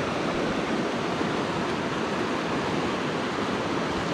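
Fast river water rushing steadily over rocks in a riffle.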